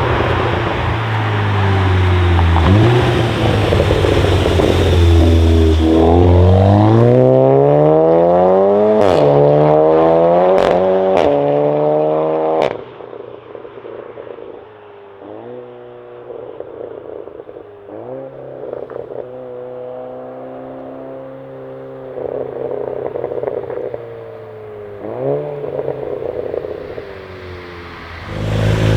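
Seat Leon Cupra ST 5F's turbocharged 2.0-litre four-cylinder with a custom exhaust accelerating hard. The pitch rises through the gears with a drop at the shift, and sharp exhaust cracks come near the top of the pull. About halfway through it cuts off suddenly, and the engine runs on more quietly with a few short revs.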